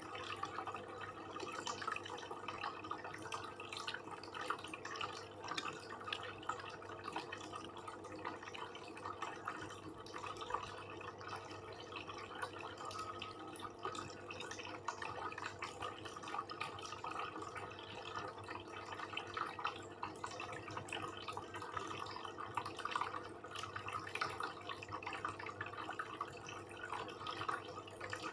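Close-miked eating sounds: wet chewing and lip-smacking while eating satay and rice with curry, as a run of small, quick clicks.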